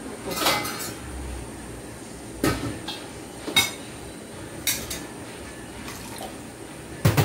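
Metal kitchenware clinking and knocking: a steel lid is set on a wok and utensils tap against plates and dishes, about five separate clatters a second or so apart.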